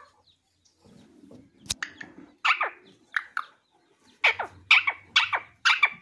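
Indian ringneck parakeet calling: short calls that each fall steeply in pitch, a couple in the middle, then four in quick succession near the end, with a sharp click just under two seconds in.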